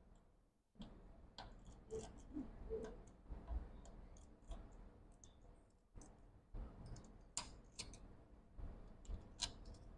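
Faint, irregular light clicks and taps of a precision screwdriver and small screws being handled during laptop disassembly.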